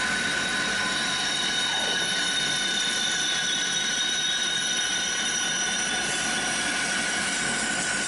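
Metal lathe running while a parting tool cuts a metal ring off the workpiece, with a steady high-pitched whine over the cutting noise.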